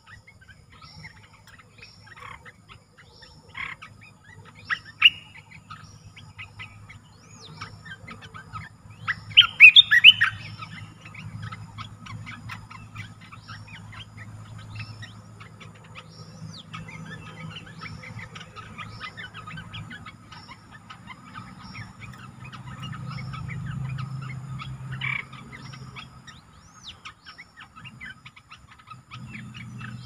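Bulbuls calling: sharp chirps and whistled calls, with a loud burst of calls about ten seconds in, over a steady run of short high notes. A wild bulbul is answering a caged decoy bird. A low hum runs underneath.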